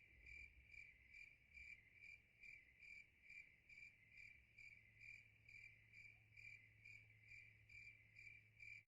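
Faint high-pitched insect chirping: one steady tone that pulses evenly, about two and a half chirps a second.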